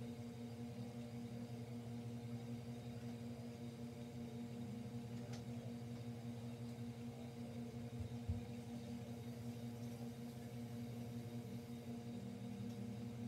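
Steady low hum with a constant pitch, like an appliance or electrical hum in the room, with a single soft bump about eight seconds in.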